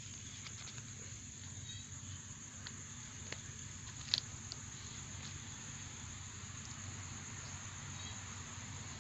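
Night insects, crickets, chirring in one steady high tone over a low even hum, with a single sharp click about four seconds in.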